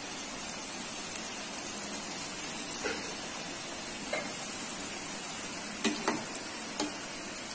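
Homemade nacho chips deep-frying in hot oil: a steady sizzle, with a few short sharp clicks in the second half.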